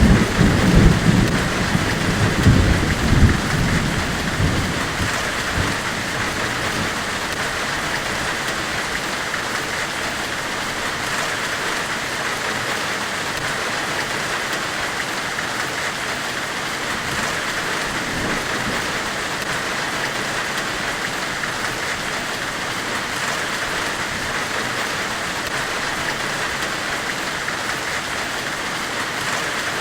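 Steady hissing white noise from a forge-weld ambient track, with low rumbling in the first few seconds that dies away.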